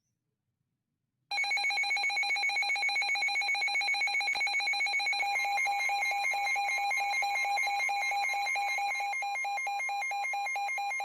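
Weather radio receiver sounding its warning alarm, a loud, fast-trilling electronic tone that starts abruptly about a second in; it signals an incoming severe thunderstorm warning.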